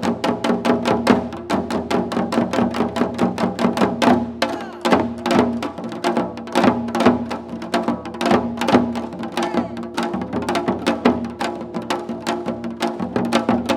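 Janggu, the Korean hourglass drum, played in a seoljanggu drumming piece: a fast, dense run of strokes, several a second, with the drums' ringing tone underneath.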